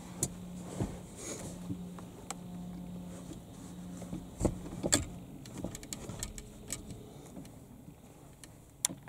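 Automatic car wash gantry's electric drive humming steadily at one low pitch, stopping after about four seconds. Two sharp knocks follow about half a second apart, then scattered light ticks.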